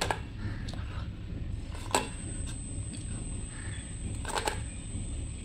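Faint clicks and taps of fingers turning biscuits on an aluminium plate inside a pressure cooker, over a steady low hum. Crows caw briefly outside, twice, at about two seconds and four seconds in.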